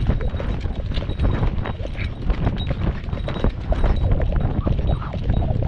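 Hoofbeats of ridden horses moving at pace along a grass and dirt field track, a quick run of irregular thuds over a steady low rumble on the microphone.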